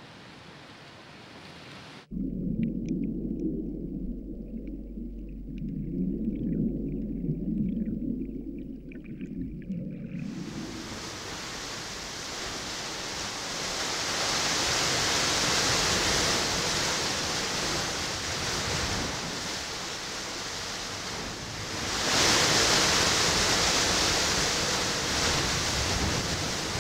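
Ocean surf breaking and churning against a rocky shore, a steady rush of water that swells about 14 seconds in and is loudest from about 22 seconds. Before it, after a faint hiss, there is a low, muffled rumble for about eight seconds.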